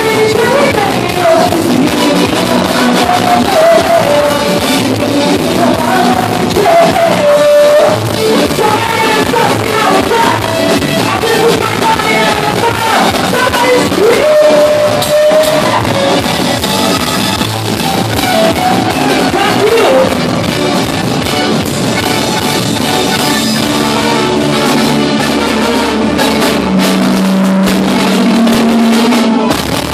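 Live band music with a woman singing into a microphone over keyboards and a drum kit. Her singing drops out about three quarters of the way through, leaving steady held notes near the end.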